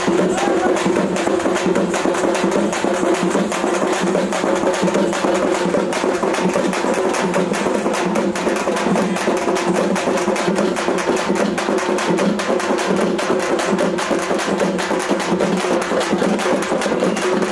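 Music with fast, unbroken drumming: sharp strokes struck in quick succession over a steady pitched backing, typical of a Ganesh immersion procession band.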